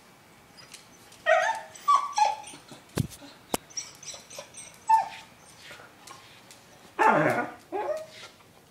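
A dog whimpering in a series of short, high, whining cries, the longest and loudest near the end, with a couple of sharp clicks about three seconds in. It is an anxious dog crying, too scared to take the big bone it is being offered.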